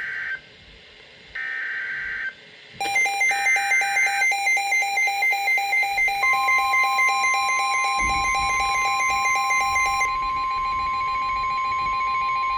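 Emergency alert data bursts: the end of one and two more short digital screeches, each about a second long, like a SAME header opening a new warning. Then a buzzy electronic alert beep pulses about twice a second, and about six seconds in the steady single-pitch NOAA Weather Radio warning tone (1050 Hz) joins it and holds.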